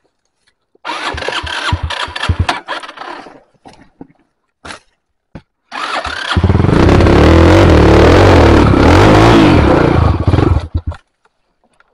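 Trail motorcycle engine being started: it sputters unevenly for a couple of seconds and pops a few times, then catches at about six seconds, runs and revs for about four seconds, and cuts out as the engine dies.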